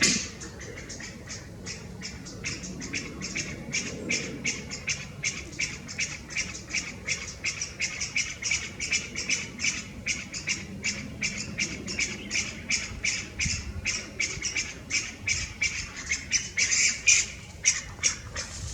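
Chinese bamboo partridge giving its non-song calls: a fast, unbroken run of short, high, shrill notes, several a second, with louder calls at the very start and near the end. These are not the familiar 'chotto koi' song.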